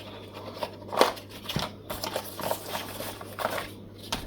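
Guitar parts being handled and rummaged through: irregular small clicks, taps and rustling, with one sharper knock about a second in, over a steady low electrical hum.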